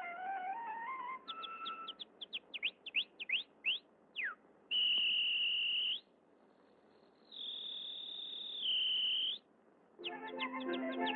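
Whistled canary song, a cartoon sound effect: a rising run of notes, then quick sweeping chirps, then two long held whistle notes with a pause between them. The second held note steps down at the end. Orchestral music comes in with more chirps near the end.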